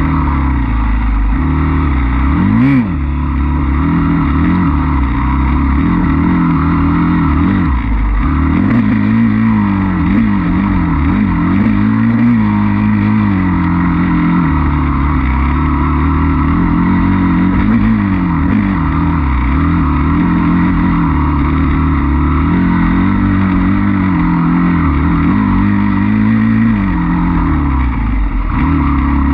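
Off-road dirt bike engine under hard riding, its pitch rising and falling again and again as the throttle is opened and rolled off through the trail's turns. A single sharp knock sounds about three seconds in.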